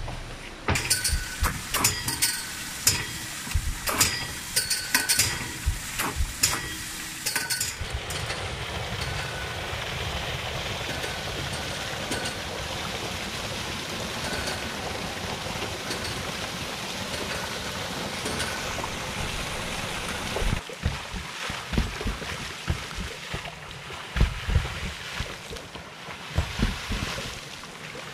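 Hydraulic ram pump's waste valves clacking shut over and over, about two sharp metallic clacks a second, for the first several seconds. A steady rush of water follows, then low thumps near the end.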